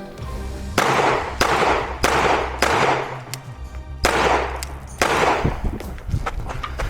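Pistol shots fired during a timed defensive pistol stage: four shots about 0.6 s apart starting just under a second in, then two more about a second apart, each with a ringing tail, over background music.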